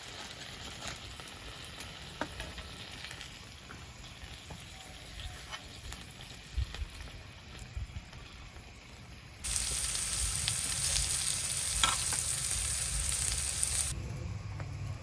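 Food sizzling and crackling as it cooks on a hot grill or pan. The sizzle turns much louder a little past halfway, for about four seconds, starting and stopping abruptly.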